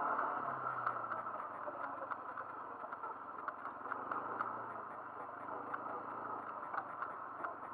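Kymco MXU 300R quad's single-cylinder engine running at a steady low pace while riding over a bumpy grass track, with frequent faint clicks throughout.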